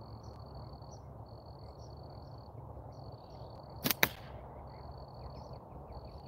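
Crickets trilling steadily. About four seconds in come two sharp cracks a split second apart as a rubber-tube slingshot fires three 8 mm steel balls at a target.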